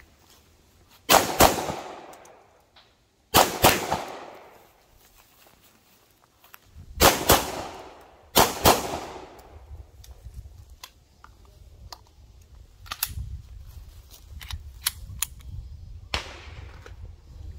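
A 9mm Canik pistol fired eight times as four quick pairs of shots, each pair trailing off in echo. Fainter clicks and knocks follow over the last several seconds.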